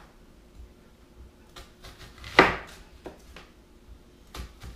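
Knife cutting an onion on a cutting board: a few separate knocks of the blade against the board, the loudest about halfway through.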